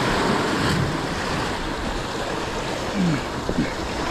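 Sea surf breaking and washing over the boulders of a rocky jetty, a steady rush of water.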